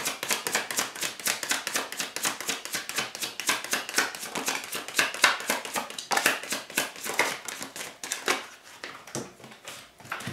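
A deck of tarot cards being shuffled by hand: a rapid run of short card-on-card slaps that thins to a few scattered taps about eight seconds in.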